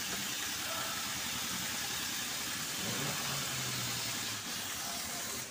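Steady machine noise, a continuous hiss over a faint low hum, that cuts off suddenly at the end.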